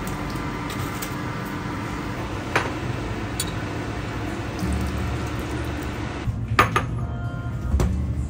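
Steady hum of an induction cooktop under a pot of cooking soup, with a few sharp clicks of kitchenware. Near the end come several clinks of a glass bowl and dishes on a stone counter.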